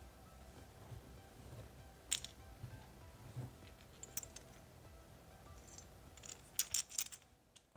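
Small metal camera shoe-mount adapters with knurled lock nuts clicking and clinking against each other as they are handled. A few separate sharp clicks are followed near the end by a quick cluster of several.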